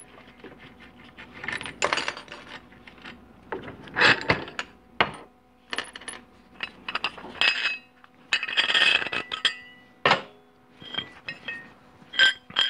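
Loose metal parts and tools clinking, knocking and rattling as they are handled on a metal-topped workbench while the pieces of a threaded-rod spring compressor are gathered. The clinks come in irregular, separate strikes, some ringing briefly, with a longer scraping rustle a little before nine seconds in.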